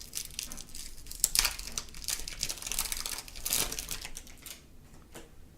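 Crinkling of a baseball card pack wrapper being handled and opened: a dense run of crackles that dies down about four and a half seconds in, with one more click near the end.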